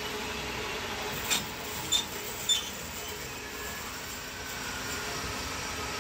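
Steady hum of a woodturning lathe's motor running, with three sharp knocks a little over a second in, each about half a second apart; the last two ring briefly, like the turned wooden leg striking the lathe's steel bed as it is set down.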